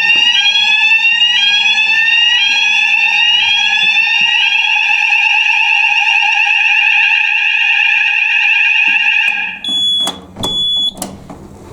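Fire alarm sounders going off for a weekly test: an electronic tone sweeping upward about once a second over a steady tone, then a steady continuous tone, which cuts off suddenly about nine seconds in. Two short beeps follow near the end.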